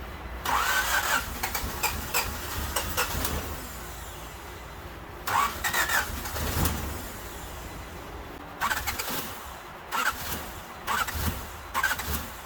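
1988 Honda Civic wagon's engine being cranked by the starter three times, each a few seconds long with short pauses between, without catching: a crank-no-start.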